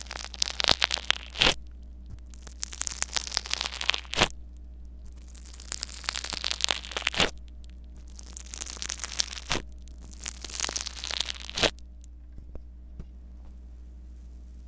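A metal-tipped tool pressed and worked into a compartment of small tube beads, making bursts of crunching crackle every second or two, several ending in a sharp click. The crackle stops for the last few seconds.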